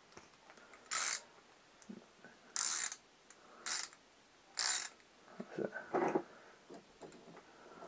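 Small ratchet wrench clicking in four short strokes about a second apart, then softer clicks, as a jet is tightened into a Keihin carburettor.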